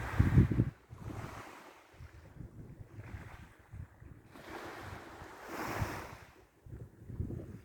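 Waves washing in, two swells of surf rising and falling a few seconds apart, with low rumbling wind buffeting on the microphone.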